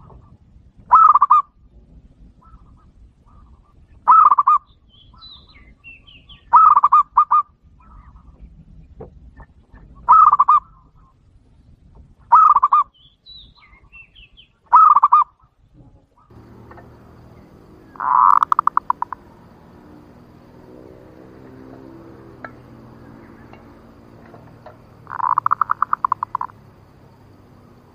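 Zebra dove (perkutut) cooing: short staccato clusters of clear, sharp notes repeated every two to three seconds, then two longer rapid trilled calls in the second half. This is a lure call, meant to provoke male perkutut into answering and coming in.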